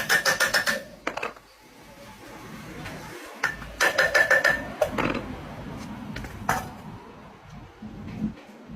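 Rapid runs of hammer blows on metal, each ringing, while a front wheel bearing is hammered. One run comes at the start and another about four seconds in, with single knocks after.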